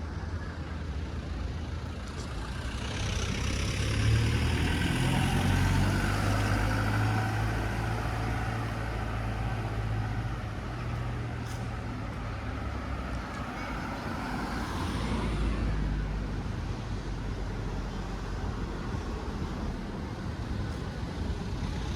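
Street traffic: a motor vehicle's engine hum with tyre and road noise, building about three seconds in and fading after about fifteen seconds as it passes, over a steady low engine rumble.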